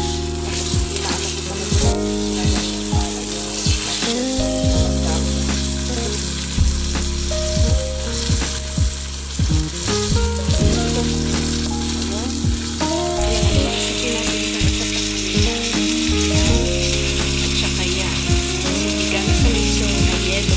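Tuna steak sizzling steadily as it fries in butter sauce in a pan, with occasional short clicks of metal tongs against the pan.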